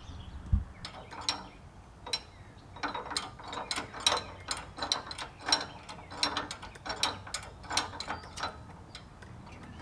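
Metal clicking from a wrench turning the threaded adjuster sleeve on a steering drag link, in irregular quick strokes about two a second.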